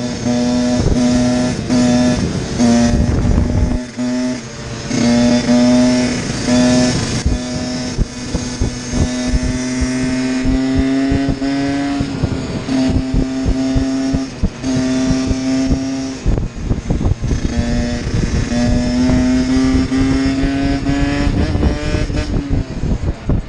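Small two-stroke dirt-bike engine at high revs under way, heard from the rider's seat: a high, nearly level engine note that cuts out and comes back briefly about half a dozen times as the throttle is eased or gears change. Wind rushes over the microphone throughout.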